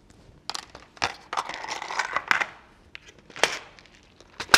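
Handling noise as hands move a fabric collar and small craft items: crinkly rustling through the first half, with sharp clicks and knocks about once a second, the loudest just before the end.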